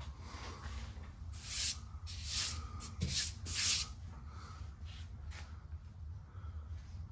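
A few short rubbing swishes in a row, between about one and four seconds in, over a steady low hum.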